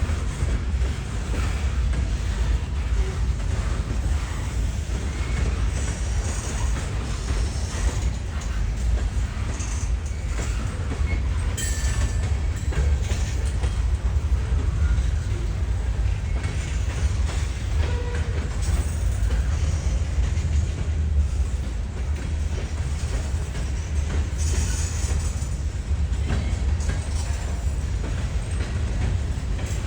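A train rolling steadily past: a continuous heavy rumble with scattered sharp clicks from the wheels on the rails.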